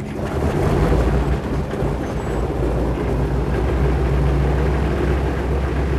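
Radial piston engine of a firefighting crop-duster plane running with a steady low throb. It picks up during the first second.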